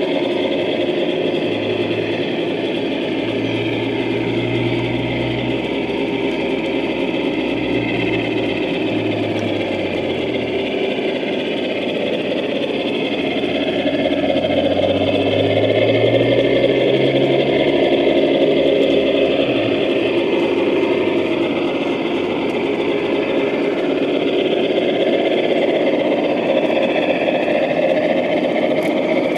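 Large-scale model train with an onboard QSI sound decoder playing diesel locomotive engine sound through its speaker as it runs along the track. The low engine note steps up and down, then rises and falls again around the middle.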